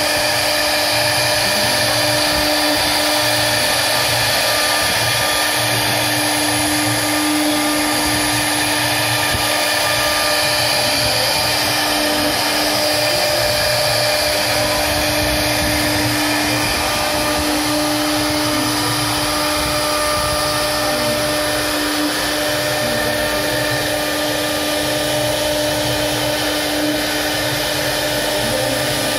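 CNC router spindle running with a steady whine as its bit carves a relief into a wooden panel.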